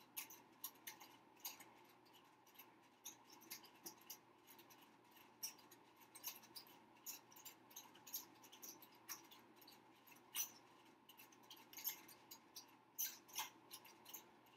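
Faint, irregular soft clicks and rustles of hands and long fingernails working synthetic kanekalon braiding hair while plaiting a box braid, several small ticks a second over quiet room tone.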